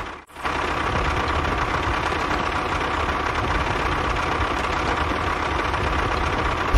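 An engine running steadily at idle, with a dense, even chugging noise. There is a brief dropout just after the start.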